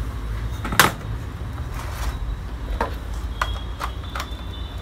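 Handling clicks and knocks of a plastic LED bulb being pushed and twisted into a bayonet lamp holder plugged into a power strip: one sharp click about a second in, then a few lighter clicks near the end.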